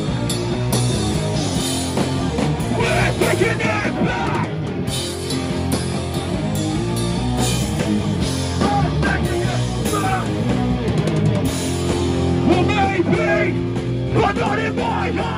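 Hardcore punk band playing live: loud guitar-driven music, with shouted vocals coming in a few times.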